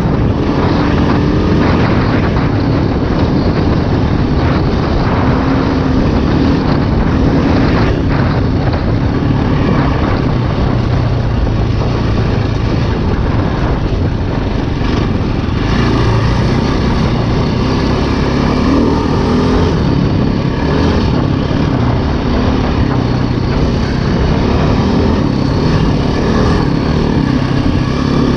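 2008 KTM 530 EXC's single-cylinder four-stroke engine running steadily as the dirt bike rides along a dirt road, mixed with wind noise on the microphone.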